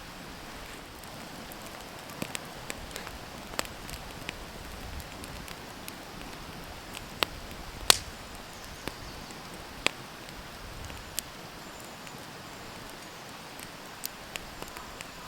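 Wood campfire crackling, with irregular sharp pops over a steady hiss; the loudest pop comes about halfway through.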